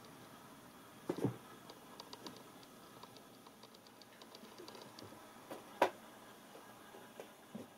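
A cat's paws and claws patting and scrabbling on a shaggy carpet as it pounces: faint scattered ticks throughout, with a louder knock about a second in and a sharp click near six seconds.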